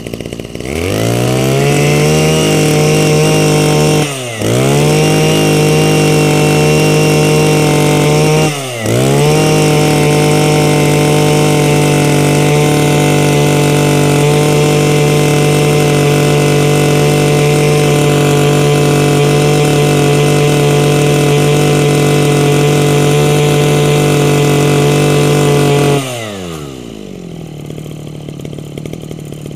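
Two-stroke brush cutter engine revved to full throttle. It climbs quickly, drops off twice briefly as the throttle is let go, then holds at a high, steady scream for most of the time. Near the end it falls back to idle and cuts out.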